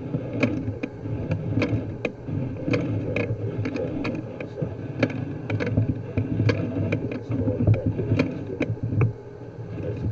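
Mechanical handling noise: a rattling rumble with irregular sharp clicks and knocks, two or three a second, stopping suddenly about a second before the end.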